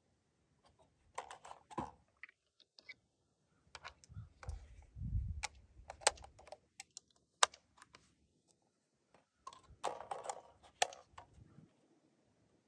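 Scattered light clicks and taps from handling a rifle and gear at a wooden shooting bench, coming in small clusters, with one sharper click about seven seconds in.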